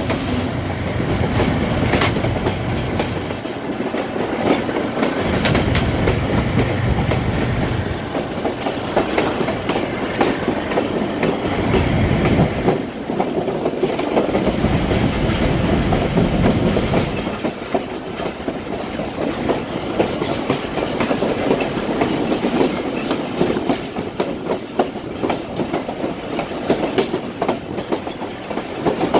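Pakistan Railways passenger coach running at speed behind diesel locomotives, heard from an open coach door: the wheels clatter over the rail joints. A deep rumble swells and fades several times.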